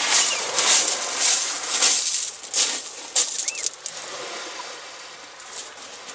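Footsteps, about one every half-second, as a person walks up to a fishing-rod tripod. They stop about three seconds in and give way to a few light clicks and a short faint chirp.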